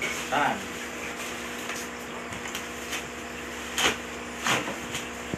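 Black plastic wrapping rustling and crinkling as a parcel is handled and opened, with a couple of sharp crackles about four seconds in.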